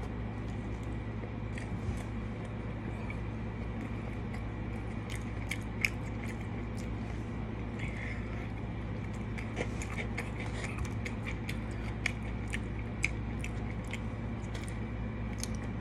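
Close-up eating of a McDonald's sandwich with lettuce: biting and chewing, heard as many small irregular mouth clicks and smacks over a steady low hum.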